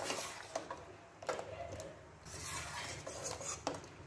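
Wire mesh strainer clinking and scraping against a metal saucepan while boiled potato chunks are scooped out of the cooking water, with water sloshing and dripping. There are several sharp clinks between stretches of splashing.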